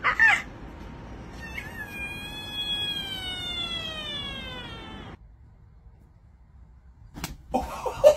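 A cat gives a short meow, then a long drawn-out yowl that slowly falls in pitch for about three and a half seconds and cuts off suddenly. A couple of sharp clicks follow near the end.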